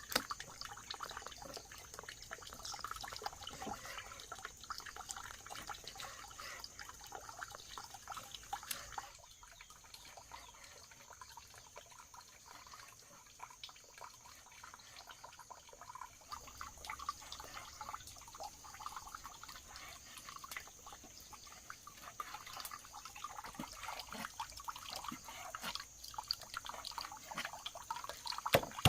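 Faint water sounds, trickling and dripping, with many small light clicks.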